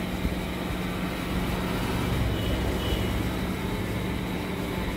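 Steady urban background noise: a low traffic rumble with a constant low hum.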